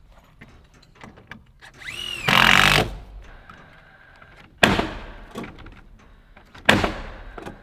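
A cordless driver spins up briefly with a rising whine about two seconds in, then three sharp nail-driving blows into framing lumber follow about a second apart.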